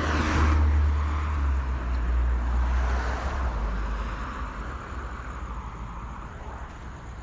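Cars pulling away from a traffic light as it turns green, accelerating past with a deep engine rumble and road noise. It is loudest in the first few seconds, then fades steadily as they move off.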